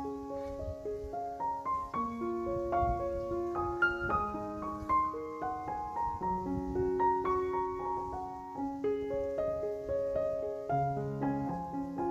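Background piano music: a slow, gentle melody of held notes.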